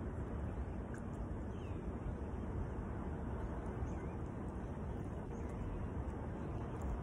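Outdoor ambience: a steady low rumble of wind and distant background noise, with a few faint bird chirps.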